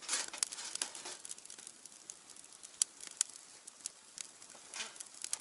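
Firewood crackling and popping as it burns in a small fire grill: irregular sharp snaps, a dense burst of crackle at the start and another just before the end, and two louder pops around the middle.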